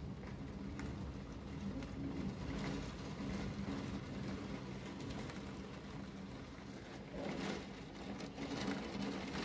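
Heavy rain pouring steadily, with drops striking the window pane, and a low humming tone that comes and goes underneath.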